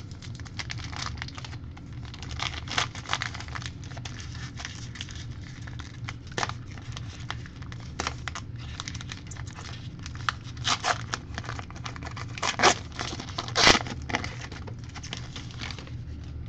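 Hands opening a small cardboard card box and handling trading cards: a run of short rustles, scrapes and light taps of card stock and cardboard, the loudest two a few seconds before the end, over a steady low hum.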